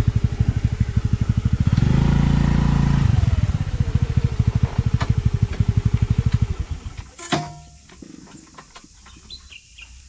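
Honda Activa scooter's single-cylinder engine idling with a rapid, even putter, briefly swelling about two seconds in. Near the end it is switched off and stops, followed by a single sharp click.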